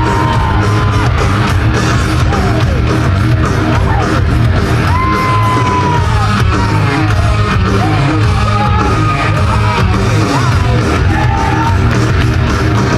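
Loud rock music playing, with yells and gliding shouts over it.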